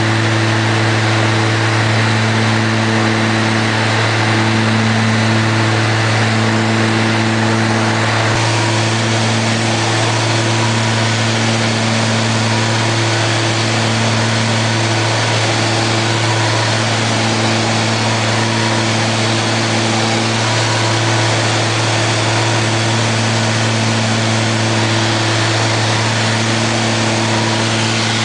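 Steady cabin drone of a light twin-engine piston aircraft in flight: a low propeller hum with higher tones that swell and fade every second or two, over a wash of engine and air noise. The hiss eases slightly about a third of the way in.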